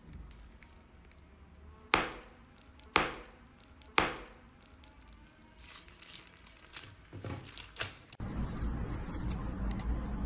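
Three sharp knocks about a second apart, each dying away, then a run of softer clicks; near the end the sound changes abruptly to a steady, louder rushing noise with a low rumble.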